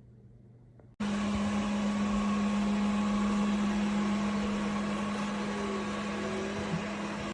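Airzeen R7 robot vacuum cleaner running: a steady motor hum with a low drone and a hiss of suction, starting suddenly about a second in.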